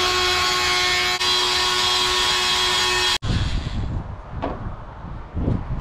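A power tool running at a steady high-pitched whine, which stops abruptly about three seconds in. Then come a few short scraping strokes as the cut edge of the panel is bevelled with a hand tool.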